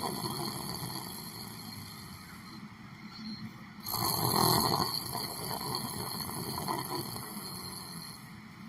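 A person snoring in sleep: two slow snoring breaths about six seconds apart, each starting loud and fading away, the second about four seconds in.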